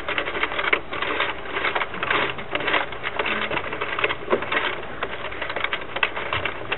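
Plastic circular knitting machine turned by its hand crank: a rapid, uneven clatter of plastic clicks from the needles as the ring advances during the cast-on.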